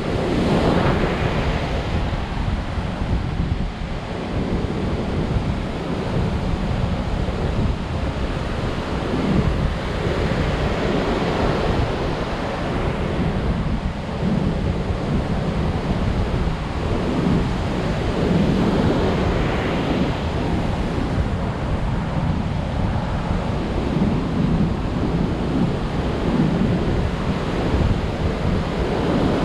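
High surf breaking and washing on a sandy beach in strong wind, in steady swells, with wind rumbling on the microphone.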